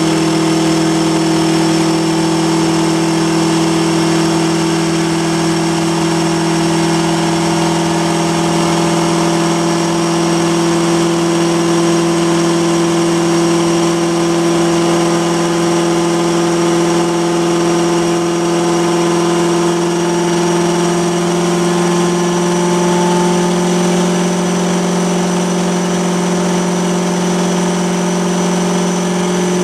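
Corvette ZR1's supercharged V8 held at a steady speed in gear on a chassis dyno, its rear tyre turning the dyno roller. The engine and drivetrain run on one steady pitch, with a faint steady high whine above.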